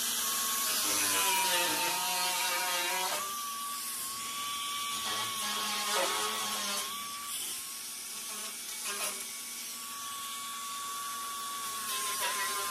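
Right-angle die grinder with a small disc grinding away a steel washer: a steady high whine whose pitch sags while it is pressed into the metal, most between about the first and third seconds, with brief dips later.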